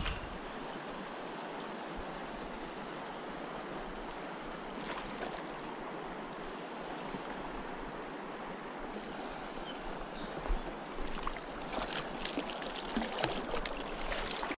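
Steady rushing of a shallow, rocky mountain stream's current, with irregular small splashes in the last few seconds.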